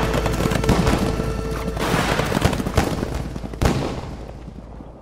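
Fireworks going off: a fast crackle of small bursts with several louder bangs, the biggest about three and a half seconds in, dying away toward the end. A song's last held note fades out at the very start.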